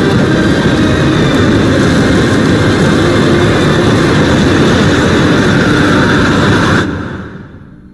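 Loud, steady rush of blizzard wind in a film snowstorm that cuts off sharply about seven seconds in, then fades away.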